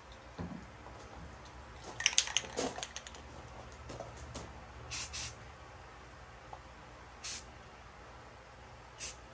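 Aerosol spray-paint can giving short, sharp hisses: a pair of quick bursts, then two single bursts a couple of seconds apart. Before them, about two seconds in, comes a quick cluster of louder clicks and rattles.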